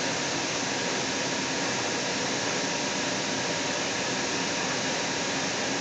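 Steady running noise inside a Seattle Link light rail car (Kinkisharyo low-floor car) travelling at speed: an even hiss of rolling and ventilation, with a faint steady whine.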